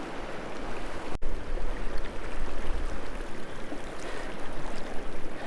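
River water running: a steady rush of flowing current, with some low rumble.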